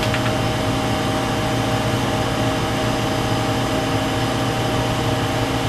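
Steady machine hum with a rush of air noise, unchanging throughout: room ventilation running.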